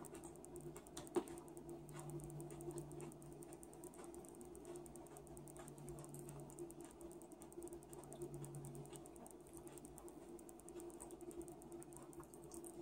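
Faint eating sounds: a metal spoon clicking against a cereal bowl and chewing of cereal, with one sharper spoon click about a second in.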